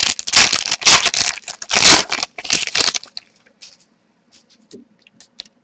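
Trading card pack and cards being handled: crinkling and rustling of the wrapper and cards for about three seconds, then a few light taps and clicks.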